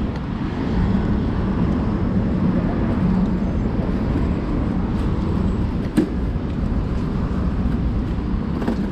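City street ambience: steady traffic noise from passing vehicles and engines, with one sharp knock about six seconds in.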